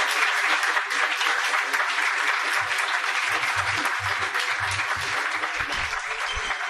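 Audience applauding with dense, steady clapping that slowly gets quieter.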